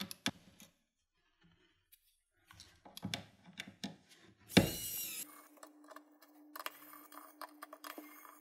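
Small clicks and scrapes of a screwdriver working the tiny screws of a phone's motherboard cover, with a short louder scrape about four and a half seconds in, followed by a faint steady hum.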